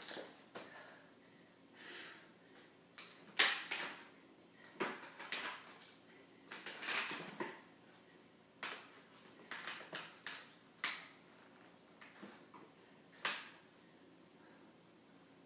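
Irregular metallic clicks, knocks and clattering from forearm crutches and full-length HKAFO leg braces being handled and shifted, with some rustling in between. The loudest knock comes about three and a half seconds in.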